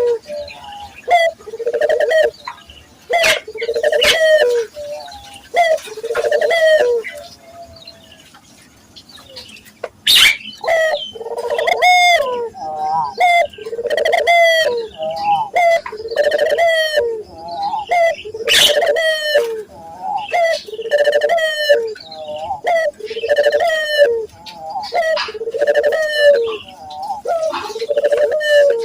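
Local puter doves cooing over and over, about one coo a second, with a short lull near the middle. Higher chirping notes and a few sharp clicks come through now and then.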